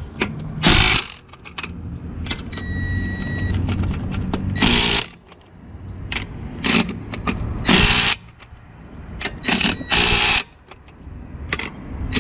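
Ryobi P263 brushed cordless 3/8-inch impact wrench hammering lug nuts tight in short bursts, four main bursts of about half a second each, a few seconds apart.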